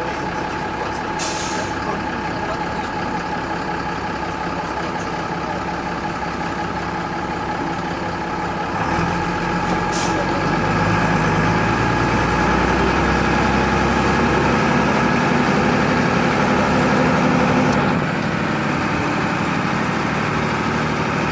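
Minibus engine running, heard from inside the cabin as it drives through floodwater. About nine seconds in the engine note deepens and grows louder, easing back near the end, with a brief hiss near the start and another about ten seconds in.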